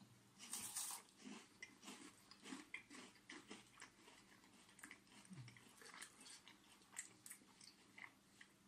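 Faint, irregular chewing and soft mouth clicks of two people eating bites of a Duplo Coconut chocolate bar.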